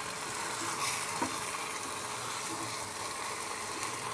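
Chicken leg pieces and tomato puree frying in a nonstick pan on a high flame: a steady sizzle while they are stirred with a wooden spatula.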